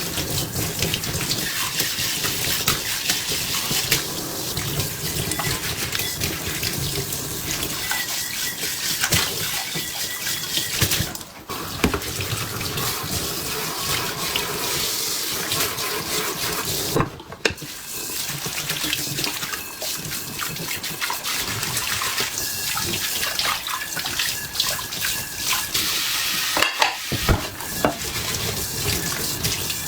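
Tap water running steadily into a sink, with scattered knocks and clinks of kitchenware. The flow briefly drops out twice, about 11 and 17 seconds in.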